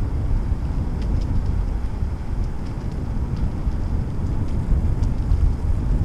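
Steady low rumble of wind on the microphone and tyre noise from a bicycle rolling along the trail, with a few faint ticks.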